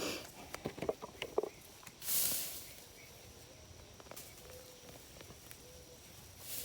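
Soil being dug and sifted through by hand while searching for potatoes: small scrapes and ticks in the first second and a half, then one louder hissing scrape of dirt about two seconds in.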